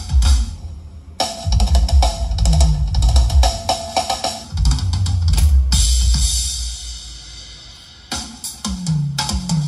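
Recorded music with a drum kit and heavy bass, played through a line-array PA with cardioid subwoofers. The drums drop out briefly about a second in. From about six to eight seconds the beat gives way to a sustained high shimmer over the bass, then the drums come back in.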